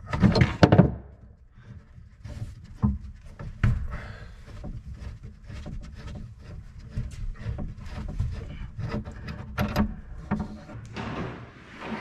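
Sink drain being taken apart under the cabinet: scattered knocks, clicks and clatter as the P-trap and its fittings are handled, over a steady low hum. The loudest knocks come in the first second.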